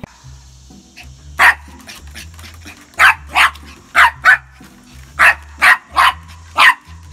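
Small dog barking sharply at a push broom, about nine short barks, several in quick pairs. Faint background music with a steady bass line runs underneath.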